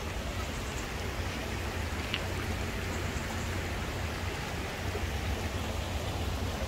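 Steady rush of a shallow stream trickling over rocks and a low weir, under a low rumble. One brief high chirp about two seconds in.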